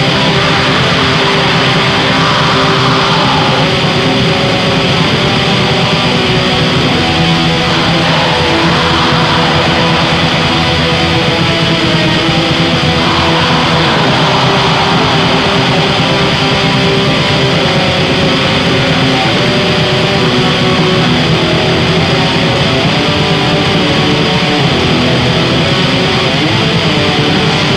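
Raw black metal demo recording: dense, distorted electric guitar over bass and drums at a constant loud level.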